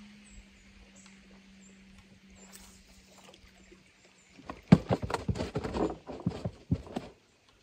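A low steady hum with a few faint high chirps, then, from about four and a half seconds in, a quick run of loud irregular clicks and knocks that cuts off suddenly near the end.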